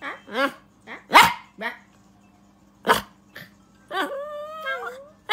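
Small white curly-coated dog yapping and yelping in a string of short, high, bending calls, with a couple of sharp louder barks, then a longer wavering whine about four seconds in.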